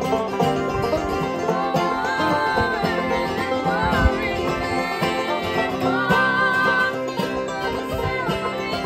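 Bluegrass gospel song played live on a five-string banjo and an acoustic guitar, with women's voices singing the melody in held, wavering notes.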